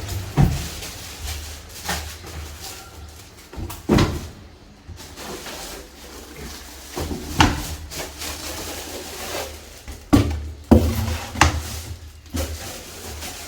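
Handling noise from unpacking an air conditioner: a string of separate knocks and clunks, several seconds apart, with quieter rustling and scraping of the packaging between them.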